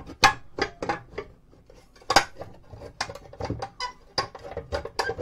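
Metal knocks, clicks and rattles as the metal top and weighing platter of an Avery Berkel D104 postal scale are worked loose and lifted off its base. The sharpest knocks come just after the start and about two seconds in.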